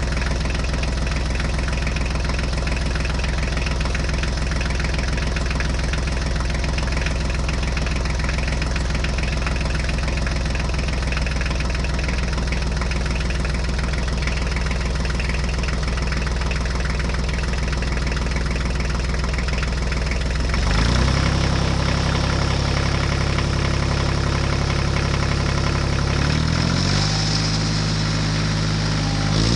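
An engine idling steadily, its tone changing abruptly about two-thirds of the way through and again near the end.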